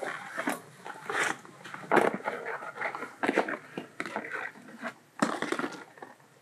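Stiff black plastic rustling, scraping and knocking as the funnel-shaped mouth of a biogas digester's feed chute is handled and pressed onto the lubed end of its plastic pipe.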